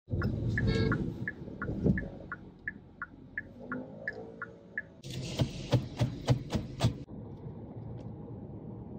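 A car horn sounds loudly for about a second at the start, heard from inside a car. Then an even ticking, about three a second, runs for a few seconds, followed by a quick run of sharp clicks.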